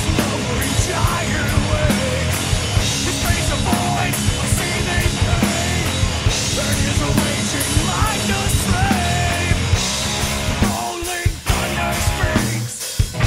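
Rock music with a steady drum beat and singing, punk in style. The drums and bass drop out briefly twice near the end.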